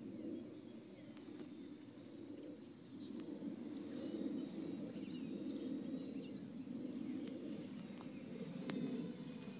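Outdoor ambience: a steady low rumble with faint bird chirps over it.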